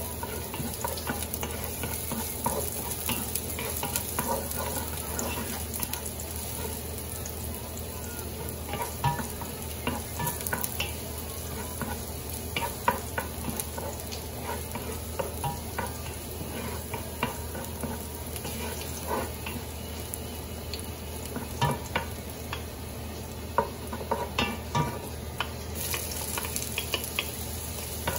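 Sliced garlic sizzling in hot oil in a nonstick pot while a wooden spoon stirs and scrapes, with scattered light taps of the spoon on the pot. Sliced red onion joins the garlic in the second half and the frying carries on.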